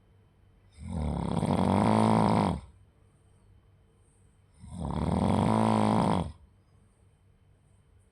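Someone snoring: two long snores about four seconds apart, each lasting nearly two seconds, with quiet breathing pauses between them.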